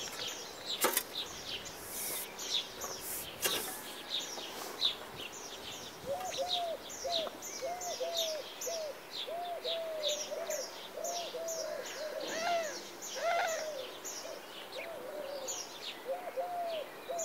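Wild birds singing outdoors: many rapid, high, short chirping notes throughout, joined about six seconds in by a lower call repeated about twice a second. Two sharp clicks sound, one about a second in and one about three and a half seconds in.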